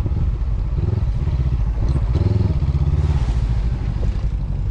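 Honda CB500X's parallel-twin engine running under way on a rough dirt track, its pitch shifting about halfway through, with some rattling from the bike.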